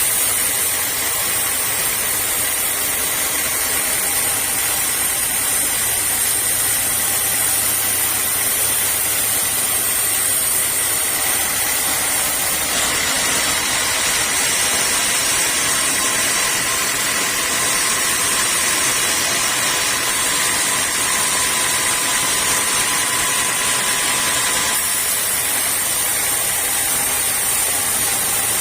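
Sawmill saw machinery running steadily: a continuous mechanical hiss with a faint high whine.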